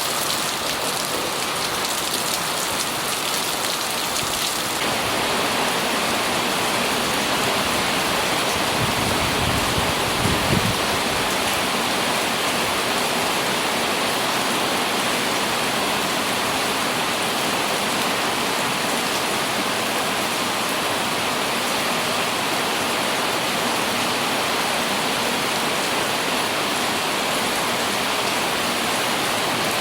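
Rain falling on an umbrella as a dense, steady patter. The hiss changes character about five seconds in. A low rumble comes in briefly around nine to eleven seconds.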